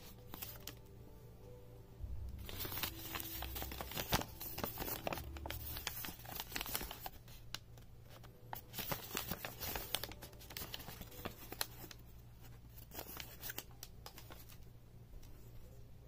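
Paper instruction sheet crinkling and rustling as it is unwrapped and unfolded by hand, with a run of irregular crackles from about two seconds in that dies down near the end.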